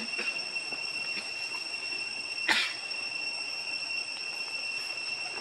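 Steady high-pitched insect drone, held on two level pitches, with one short sharp crackle about two and a half seconds in.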